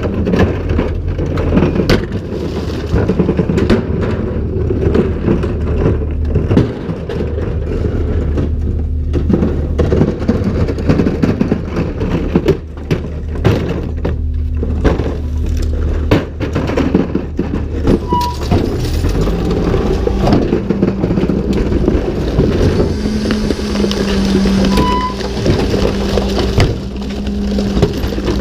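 Rear-loader garbage truck's diesel engine idling under repeated bangs and clatter of plastic wheeled carts being handled and emptied into the hopper. In the last few seconds a steadier, higher hum sets in as the hydraulic cart tipper lifts a cart.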